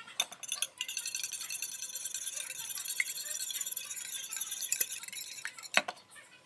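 Metal wire whisk beating a raw egg in a shallow dish: a fast, steady run of light clinking and ticking as the wires strike the dish, with a sharper click near the end.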